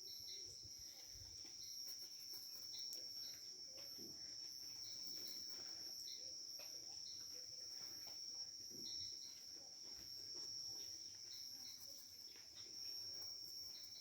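Night insects, crickets by their sound, trilling steadily: one continuous high-pitched trill with a faster pulsing chirp above it. A few faint clicks are scattered through it.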